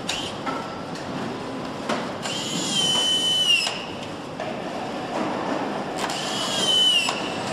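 Handheld power screwdriver running twice, each time for about a second and a half: a high whine that climbs at the start, holds, and drops as it stops, over the clatter of the assembly line.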